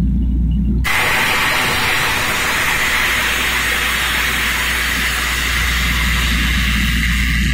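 Loud, steady rush of compressed air on a borewell drilling rig, starting abruptly about a second in and dying away near the end. The rig's engine rumbles low underneath.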